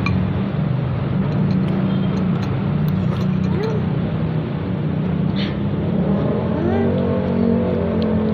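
Steady, continuous rumble of engines like road traffic, with faint background voices and a few light clicks of cutlery.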